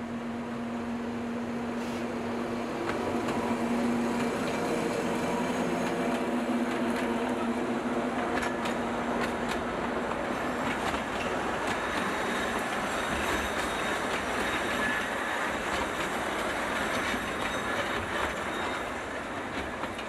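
A small narrow-gauge diesel forest-railway locomotive passes with a steady engine hum, followed by its open passenger cars rolling by: wheels clicking over the rail joints with a faint thin wheel squeal in the middle.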